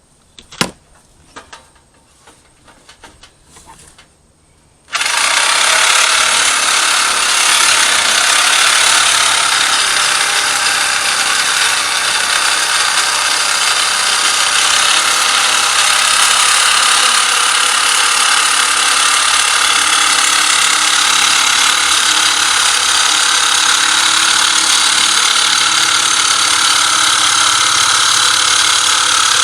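A few sharp clicks and knocks of metal being handled, then about five seconds in a power tool working sheet metal starts abruptly and runs loud and steady.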